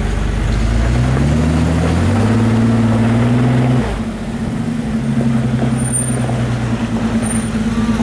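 Isuzu Trooper's engine running under load on a dirt 4x4 trail: the revs rise for a few seconds, drop sharply about halfway through as the throttle comes off, then hold steady at lower revs.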